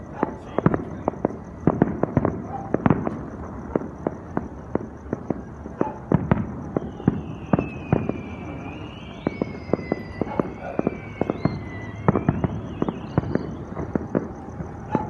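Fireworks going off: a dense, irregular run of bangs and pops, several a second. A high wavering whistle runs faintly through the middle.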